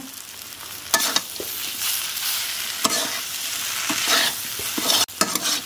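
Flat metal spatula scraping and stirring a dry-fried mashed potato filling around a kadhai over a faint sizzle, with a few sharp clinks of the spatula against the pan.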